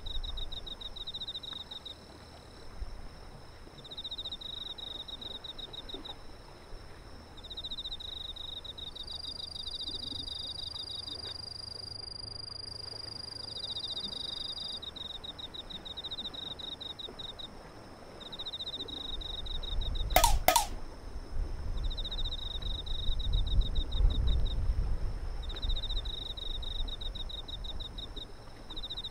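Insects chirping in repeated rapid trills, each a second or two long with short pauses between. A steady high whine joins for several seconds in the middle. About two-thirds of the way through comes a single sharp whoosh, the loudest sound, followed by a few seconds of low rumble.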